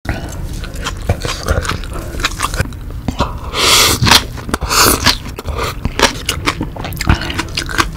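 Close-miked chewing of spicy green onion kimchi and rice: wet mouth sounds with many small clicks and crunches. About three and a half seconds in and again near five seconds come two louder breathy sucking sounds as a mouthful goes in.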